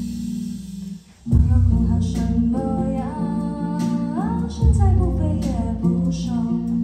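Zhong ruan and drum kit playing a bossa nova groove with a woman singing the melody; the music drops out briefly about a second in, then comes back in.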